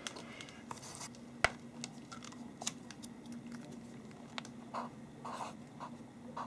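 Permanent marker writing on paper in a notebook: short, soft scratchy strokes with a few small clicks and taps, the sharpest click about a second and a half in. A faint steady hum sits underneath.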